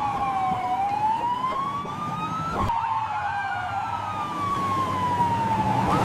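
Police siren wailing in long, slow sweeps of pitch up and down, with an abrupt jump in pitch about two and a half seconds in.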